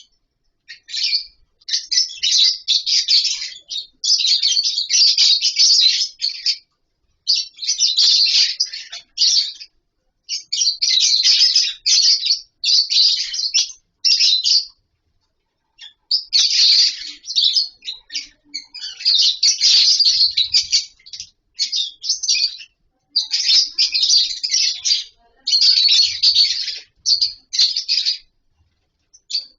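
A colony of lovebirds chattering and chirping, shrill and dense, in bursts of a few seconds with short pauses between.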